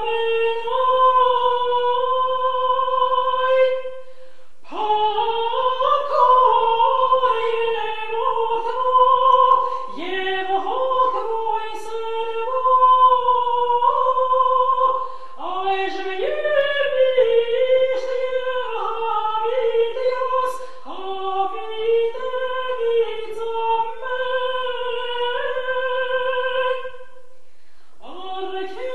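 A woman singing alone and unaccompanied, an Armenian church chant. The melody moves in long held notes joined by ornamented turns, with a short pause about four seconds in and another near the end.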